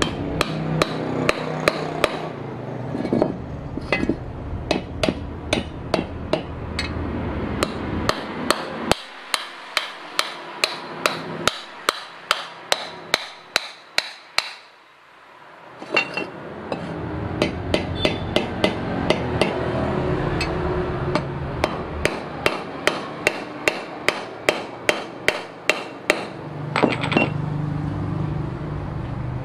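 Hammer blows struck over and over at a steady pace of about two to three a second, each short and sharp with a faint ring. A low background rumble drops out for a few seconds in the middle.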